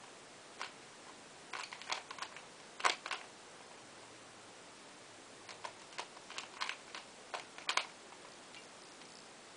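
Plastic Rubik's Cube being twisted layer by layer: quick runs of sharp clicks, one run around two to three seconds in and another from about five and a half to eight seconds in, with a lull between.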